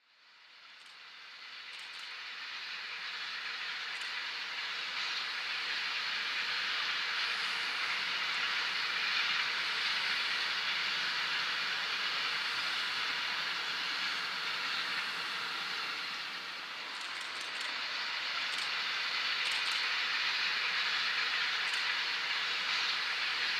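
Freight train of flat wagons rolling past: a steady rushing noise of wheels on rail that swells over the first few seconds and then holds, with a few faint clicks about two-thirds of the way through.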